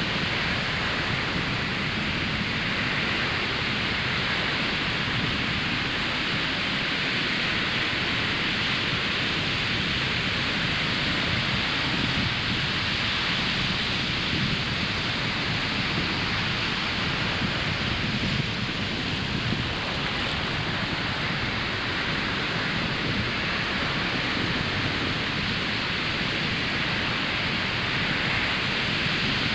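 Ocean surf breaking on a sandy beach: a continuous wash of white water with a low rumble underneath, swelling and easing gently without any distinct single crash.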